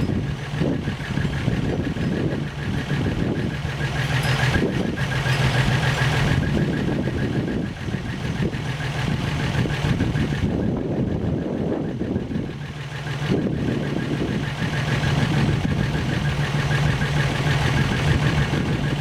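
1963 Rambler American's rebuilt straight-six engine idling steadily, running on its first start after the rebuild.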